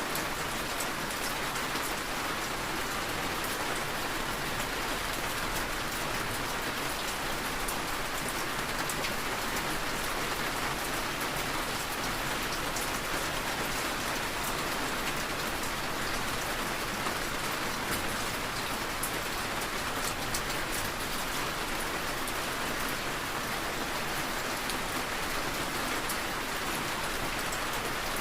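Steady rainfall, a constant patter of drops on a surface with no let-up or change.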